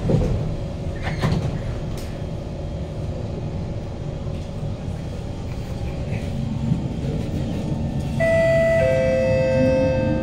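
Interior of a Kawasaki Heavy Industries C151 metro car: a thump as the doors shut at the start, then the rumble of the standing train. About eight seconds in, the GTO-VVVF traction inverter starts up with a whine of several steady tones as the train begins to pull away, with some tones starting to climb near the end.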